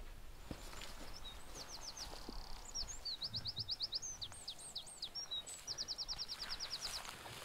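A small songbird singing: quick runs of thin, high notes, each note sliding downward, in several bursts, the longest run near the end.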